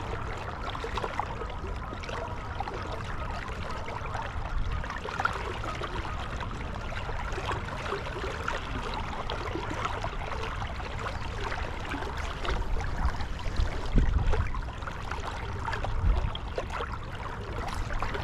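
River water rushing and trickling past, with wind rumbling on the microphone and a few louder swells of noise near the end.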